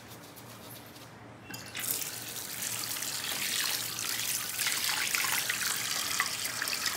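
Tap water running into a sink, with splashing as a face is rinsed under it, starting about one and a half seconds in.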